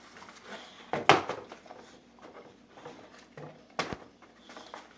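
A few sharp knocks and thumps, the loudest about a second in and another short one near the end, with quiet rustling between.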